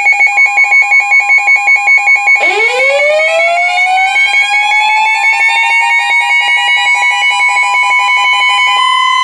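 Emergency warning alarm: a rapidly pulsing two-pitch electronic tone beeping about five times a second, joined by a steady high tone. About two and a half seconds in, a siren winds up, rising steadily in pitch over several seconds and then holding its high note.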